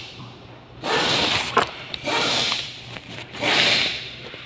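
Cloth rubbing and scraping against the recording phone's microphone as it is handled, in three rustling bursts, with a sharp click about a second and a half in.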